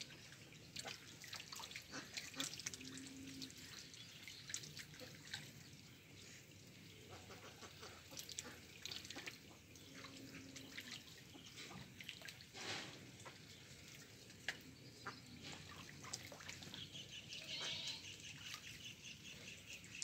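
Domestic ducks dabbling in a shallow muddy puddle: soft wet clicks and small splashes as their bills work the water. A brief high-pitched call comes near the end.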